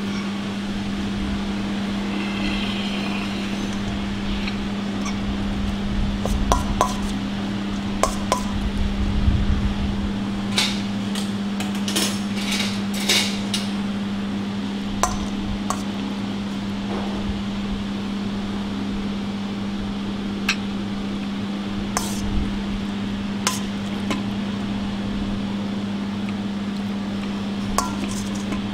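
Scattered clinks and knocks of metal kitchenware: a stainless steel mixing bowl, a metal ring mould set down on a ceramic plate, and a spoon working salad out of the bowl. The knocks are thickest in the first half and sparse later, over a steady low mechanical hum.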